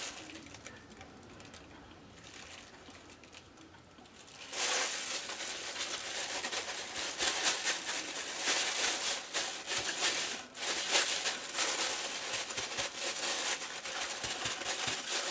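Plastic bag crinkling and rubbing as a bagged hand presses and smooths a glued paper napkin onto a painted bottle. It is faint for the first few seconds, then a steady, dense crinkling starts about four and a half seconds in.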